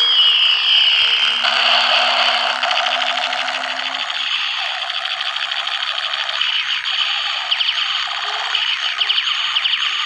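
Electronic sound effect from a battery-powered toy gun: a falling zap tone, then a fast, steady stream of rattling pulses.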